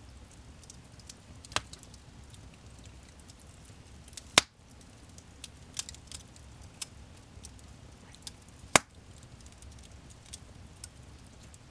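Wood fire in a fireplace crackling: a low steady rumble with scattered small ticks and three loud, sharp pops, the loudest about four and a half seconds in.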